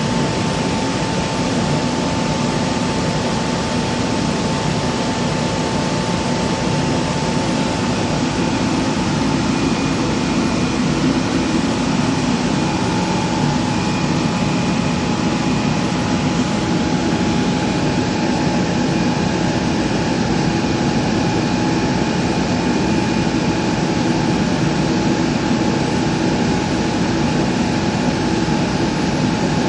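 Laser cutting machine running: a steady mechanical rush of noise with a steady high whine through it, unchanging in level.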